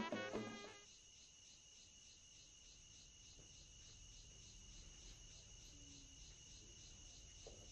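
Faint steady chirring of crickets at night, with the tail of the background music dying away in the first second.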